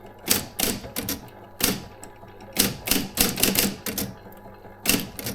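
Adler Junior Electric electric typewriter being typed on: irregular key strikes, some in quick runs of several letters, with short pauses between them.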